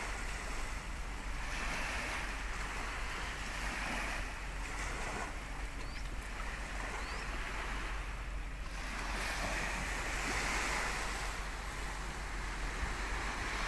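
Sea water washing against the jetty and shore, a steady wash that swells and eases every few seconds, with wind rumbling on the microphone.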